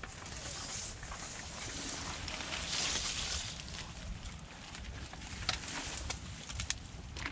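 Mangrove leaves and twigs rustling as someone pushes through the shrubs on foot over mud. The rustling is louder about three seconds in, and there are a few sharp clicks in the second half.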